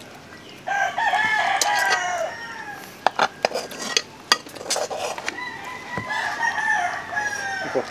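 A rooster crowing twice, two long crows, with a few sharp clicks between them.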